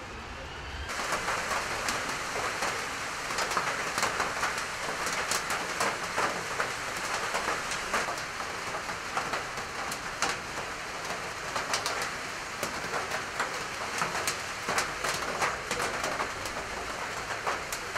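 Rain falling steadily, a dense hiss of rain with frequent sharp ticks of drops striking close by, starting suddenly about a second in.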